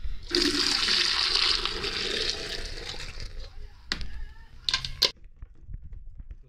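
Hot milk poured from a pot through a mesh strainer into a plastic jug, splashing for about three seconds and then tapering off. A few sharp clacks follow a second or so later.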